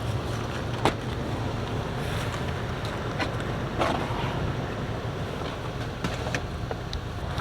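Vehicle running with a steady low rumble, and a few sharp clicks or knocks, the loudest about a second in and near four seconds in.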